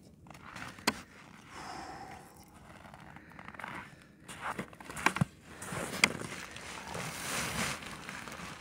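Footsteps crunching in snow, with a few sharp knocks and scrapes from a snow shovel. Near the end, the rustle of a heavy fabric ice-fishing tent being spread out on the snow.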